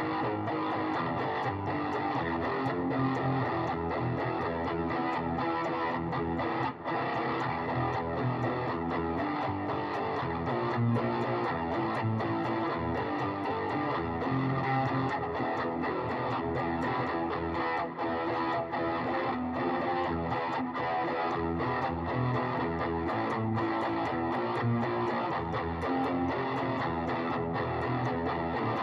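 Electric guitar played through a Sky overdrive and distortion effect, a continuous run of strummed chords and picked notes with a driven, overdriven tone.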